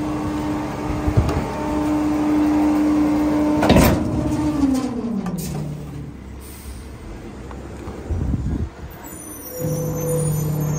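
Pak Mor rear-loader garbage truck running its packer cycle: the engine holds a steady raised hum while the hydraulic blade sweeps the hopper, with a sudden loud clunk a little under four seconds in. The engine pitch then glides down as the revs drop back, and a steady lower hum returns near the end.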